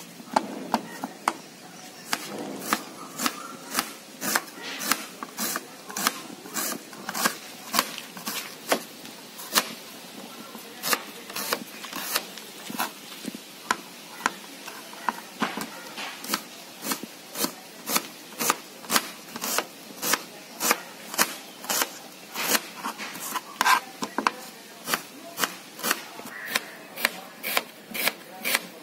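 Kitchen knife slicing onions on a plastic cutting board: a steady series of knocks as the blade meets the board, a little under two cuts a second.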